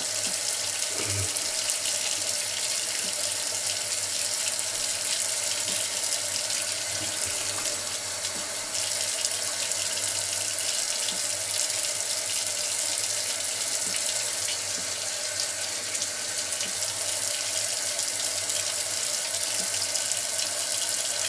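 Bathroom tap running steadily into the sink, an even rushing hiss throughout.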